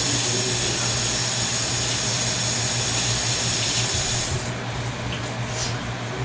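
Kitchen sink faucet running in a steady hissing stream, shut off about four seconds in, followed by a few faint clicks over a steady low hum.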